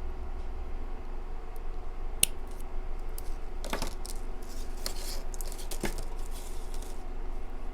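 Light clicks and taps of small beads and a clasp being handled while a waist-bead strand is tied off, four or five in all, the sharpest about two seconds in, over a steady low hum.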